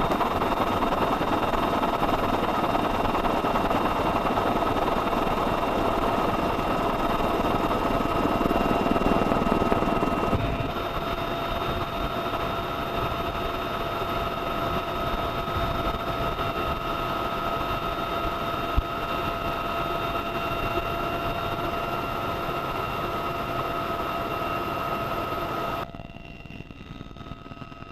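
Helicopter running steadily, a dense noise with a steady high whine through it. The level drops abruptly about ten seconds in and again near the end.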